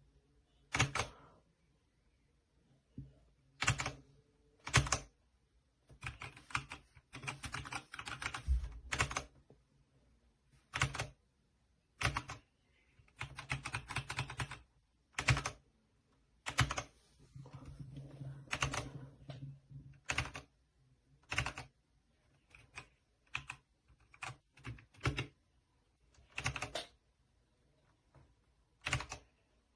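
Typing on a Redragon K617 60% mechanical keyboard: single key presses spread apart, broken by several runs of fast typing.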